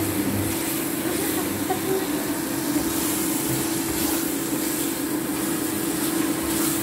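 Green chili paste sizzling in oil in a stainless steel pan as it is stirred with a spatula, over a steady low hum.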